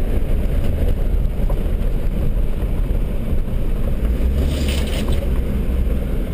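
Land Rover 4x4 driving slowly on a rough dirt track, heard from inside the cabin: a steady low engine and drivetrain rumble with tyre and body noise. A brief rasping noise comes about four and a half seconds in.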